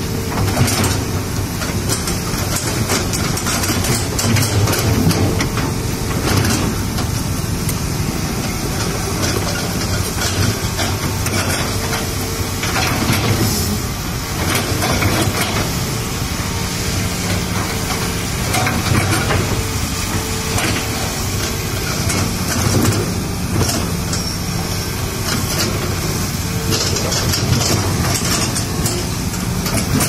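Hitachi Zaxis 210 excavator's diesel engine running steadily, with the bucket crunching and scraping over crushed stone as it levels it, giving irregular knocks and grinding over the engine.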